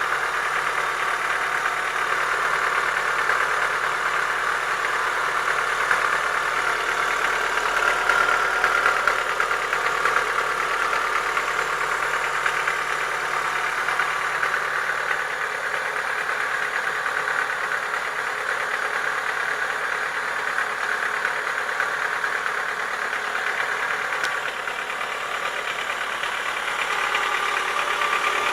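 Chevrolet Lacetti 1.6 four-cylinder petrol engine running steadily at idle with a rapid knock from inside the block. It is the knock that the owner cured by boring the block and replacing the pistons and rings, pointing to worn cylinders and pistons.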